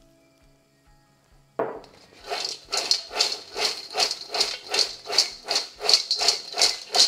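Buttered popcorn tossed in a large stainless steel mixing bowl, starting suddenly about a second and a half in: a rattling swish repeated in an even rhythm of about two and a half tosses a second.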